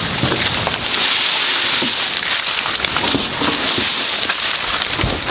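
Steady rain falling, with a push broom sweeping wet leaves across wooden porch boards and a few light knocks.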